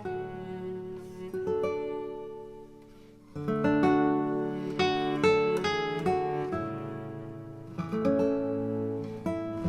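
Background music: acoustic guitar, plucked and strummed chords, fading down about three seconds in before coming back in strongly.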